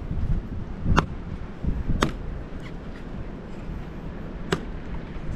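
A blade chopping into the husk of a green coconut: three sharp strikes, two about a second apart and a third near the end.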